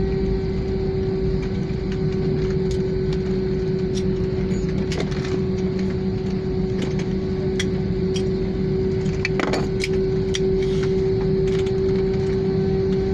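Jet airliner cabin noise while taxiing after landing: a steady engine hum with a constant mid-pitched tone, and scattered small clicks and rattles.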